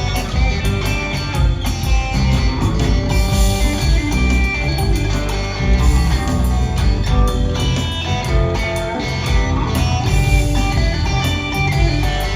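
Live rock trio playing an instrumental jam: electric guitar over bass guitar and drums, with no singing.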